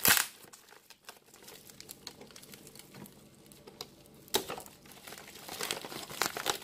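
Black plastic courier mailer crinkling and rustling as the parcel is handled and opened, with a loud tearing rustle at the start and another about four and a half seconds in, then a run of quicker crackles.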